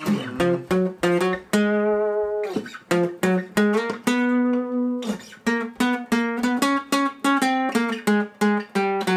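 Acoustic guitar played solo: a quick melody of single plucked notes, with two longer held notes about a second and a half in and about four seconds in.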